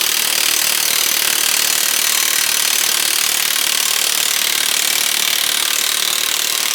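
Power tool, most likely an impact wrench, hammering steadily on a rusted hub bolt that has been heated with a torch to free it.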